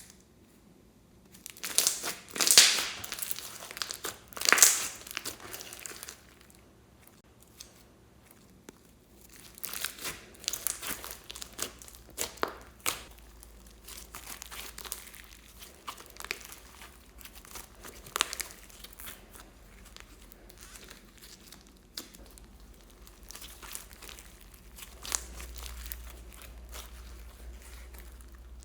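Hands squishing and pressing slime, making crinkly, crackling sounds: two loud bursts of crackling near the start, then a long run of smaller crackles and pops.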